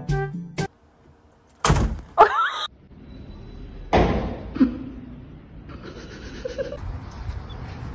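Thumps against a door: two sharp knocks about two seconds in, then a loud thud about four seconds in as a cat runs into a door edge, followed by low room noise.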